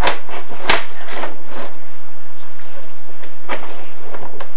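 Chimney inspection camera being fed down a flue: a few sharp knocks, two near the start and one about three and a half seconds in, with light rubbing and scraping between them as the camera and its rod move against the flue.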